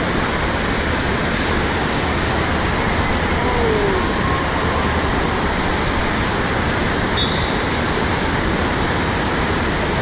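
Steady, loud rushing noise of running and falling water, even and unbroken throughout.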